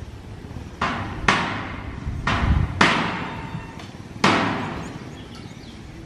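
Five sharp bangs, each ringing out briefly: two close together about a second in, two more about two and a half seconds in, and a last one about four seconds in, over a steady low background hum.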